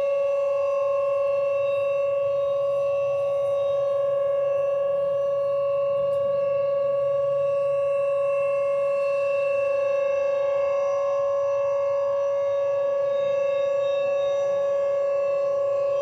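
Thunderbolt 1000 and Whelen 2810 sirens sounding the steady alert signal: a single even siren tone that holds one pitch without rising or falling.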